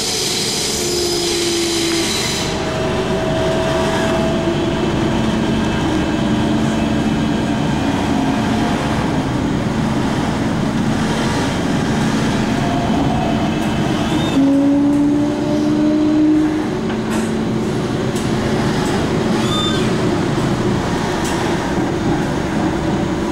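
MTR K-Train electric multiple unit running in a tunnel: a steady rumble of wheels on rail, with the traction motors' whine gliding briefly in pitch several times and swelling louder about two-thirds of the way through. A high hiss in the first couple of seconds cuts off abruptly.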